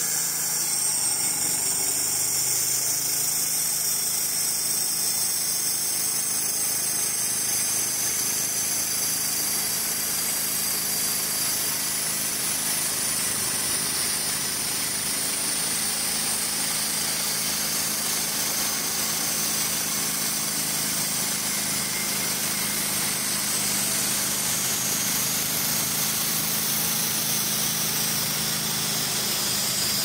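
Wood-Mizer LT35 hydraulic sawmill running steadily, its engine and band blade at a constant pitch as it saws a squared log.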